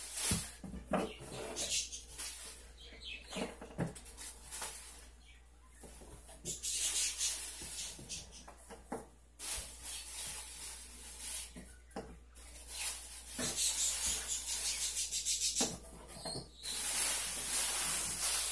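Thin plastic bag rustling and crinkling in bouts as tomatoes are emptied out of it, ending in a louder stretch of crinkling as the empty bag is crumpled up by hand.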